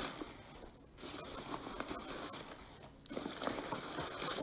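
Foam packing peanuts and plastic wrapping rustling and crinkling as a hand rummages through a shipping box. It comes in three stretches, with short pauses about a second in and about three seconds in.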